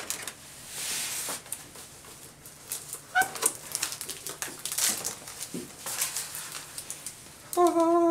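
Cardboard and styrofoam packaging being handled: a cardboard lid scrapes and rustles as it slides off a styrofoam box, with light taps and clicks. A short squeak a few seconds in and a louder one near the end as the styrofoam tray is lifted out.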